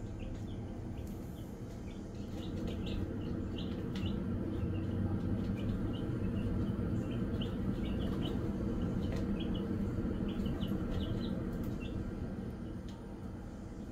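Easter Egger chicks peeping, many short high peeps overlapping at an irregular rate, over a steady low hum that grows louder in the middle and eases off near the end.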